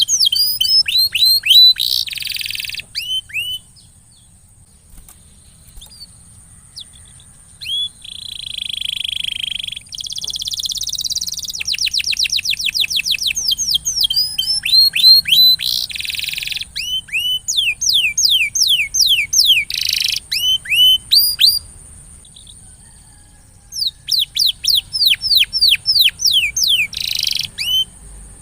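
Domestic canary singing: rapid trills of high down-slurred notes repeated many times a second, broken by harsher buzzy rolls, with short pauses between phrases.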